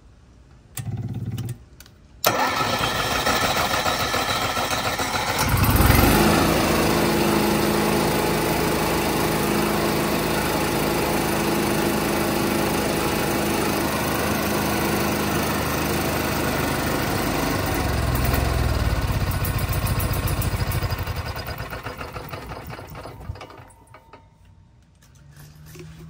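Onan Microquiet 4000 RV generator engine, fitted with a new carburetor, being started: a brief buzz about a second in, then it cranks and catches a little after two seconds, surges and runs steadily. Near the 20-second mark it surges again, then winds down and stops on its own, a shutdown the generator reports as error 36, the same fault as before the carburetor swap.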